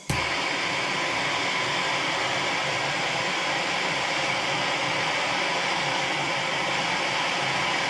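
A gas torch burning with a steady hiss that starts abruptly, heating a stuck rear-axle part held under strain by a puller so that it will let go.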